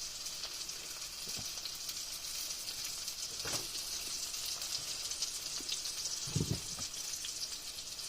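Green tomato slices sizzling as they fry in a pan: a steady hiss. A few low knocks come through it, the loudest about six and a half seconds in.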